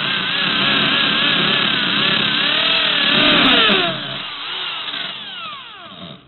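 Power drill running as it bores into an old phone's camera, its pitch wavering. After about four seconds it grows quieter with a run of falling whines, and it cuts out just before the end.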